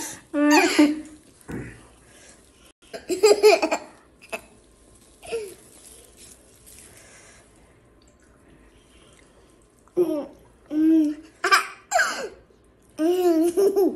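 A toddler laughing and giggling in short bursts: a couple near the start, then a quieter stretch, then a run of laughs in the last few seconds.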